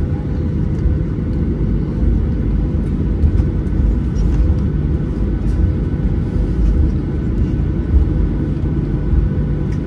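Cabin noise of a Boeing 737-800 taxiing: a steady low rumble from its CFM56-7B engines at taxi power and the rolling wheels, with a constant hum.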